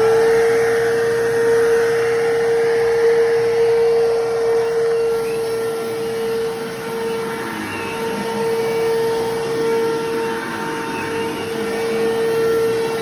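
Bissell Lift-Off bagless vacuum cleaner running at full speed while vacuuming, its motor holding one steady whine over a rushing airflow noise that rises and falls slightly.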